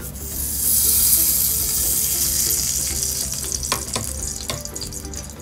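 A spoonful of ghee sizzling as it hits a hot aluminium pot: a loud hiss that builds within the first second, then slowly dies down as the ghee melts. A couple of light clicks come near the end.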